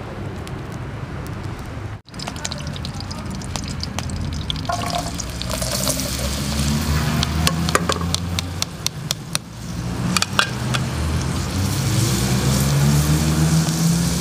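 Chopped onions tipped into hot fat in an aluminium pot over a wood fire, sizzling from about a third of the way in, with a metal spoon clicking and scraping against the pot as they are stirred. A steady low rumble runs underneath.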